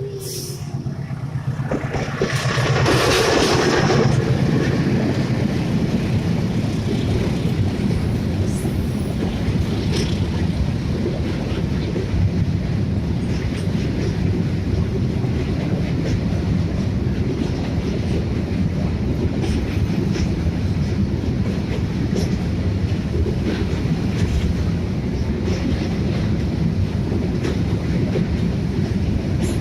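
Freight train wagons rolling past close by, a steady rumble with the clatter of wheels over the rail joints, with a louder rush about two to four seconds in.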